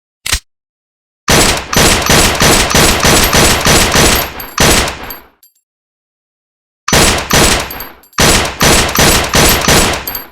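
Gunfire: a single shot, then three bursts of rapid shots about five a second, the first lasting about four seconds and the other two shorter, with silence between.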